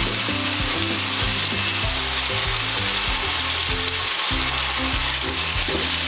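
Xiaomi Wireless Vacuum Cleaner 2 cordless stick vacuum running at its highest suction setting while sucking up dried beans, giving a steady hiss of rushing air.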